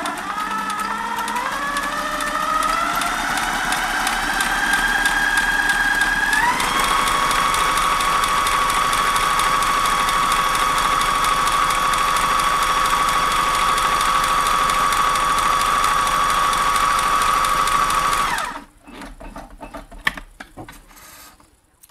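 Kenmore 1050 sewing machine with a Q-foot stitching an elastic stitch, the needle going in rapid even strokes. The motor whine climbs in pitch over the first six seconds as it speeds up, runs steady, then stops suddenly near the end, followed by a few small clicks.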